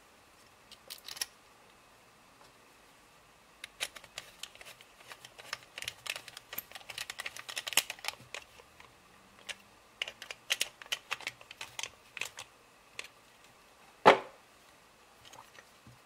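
Screwdriver driving a small screw into the rear plate of a Yale deadbolt lock cylinder: a run of quick, light metallic clicks and scrapes for several seconds, then one sharper click near the end.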